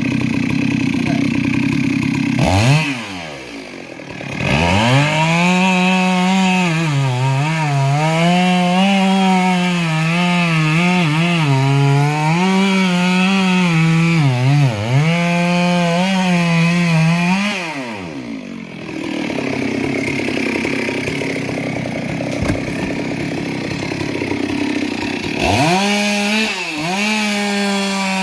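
Two-stroke chainsaw running at high revs and cutting through wood, its pitch dipping and recovering as the chain bogs in the cut. It drops back to idle twice, once near the start and again for several seconds in the second half, and revs up again near the end.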